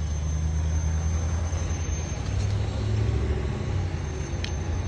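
Road traffic engines running as a low, steady rumble that grows a little louder around the middle.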